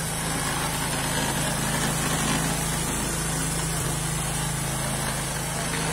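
Small engine of a homemade motorized hand cart running steadily.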